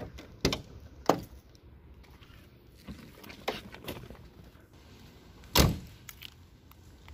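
Handling noises at a car as a courier's thermal delivery bag is picked up: a few scattered clicks and knocks, then one much louder thud about two-thirds of the way through.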